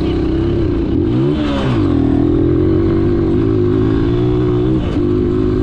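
Motorcycle engine running steadily under way. About a second in, its revs dip and then climb back up.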